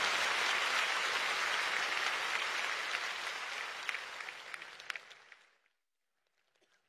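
Large theatre audience applauding, the applause thinning out and dying away about five seconds in.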